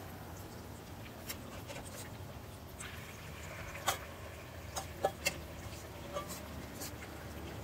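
A spoon tapping and scraping against a stainless steel mixing bowl as tempura batter is worked out of it into frying oil: a handful of sharp clicks, the loudest about four and five seconds in, over a low steady hum.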